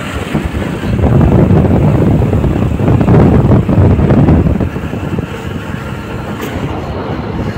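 Motorcycle riding along at speed, its engine and road noise mixed with heavy wind buffeting on the microphone; the rumble eases somewhat after about five seconds.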